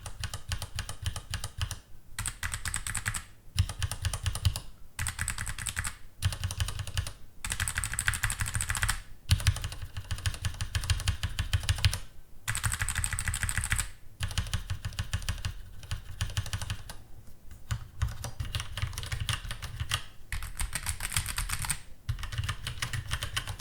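Typing on the Xiaomi BlaSoul Y520 mechanical keyboard with linear Cherry MX switches: dense runs of rapid key clacks lasting a second or two, broken by short pauses.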